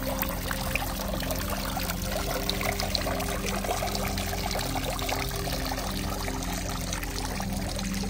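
Liquid pouring and trickling steadily, a continuous wet crackling splash.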